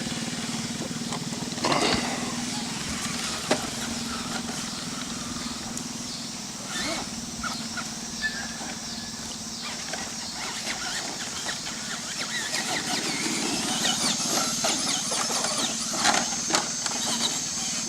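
Traxxas Bigfoot RC monster truck driving over dirt, its electric motor and drivetrain whining under a steady noise of tyres and wind. A thin, high whine comes in about two-thirds of the way through, with a few short knocks.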